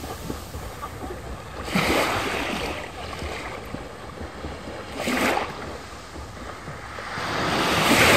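Small waves washing up onto the sand at the shoreline, in swells of hiss about two seconds in, about five seconds in, and a longer one building near the end. A low wind rumble on the microphone runs underneath.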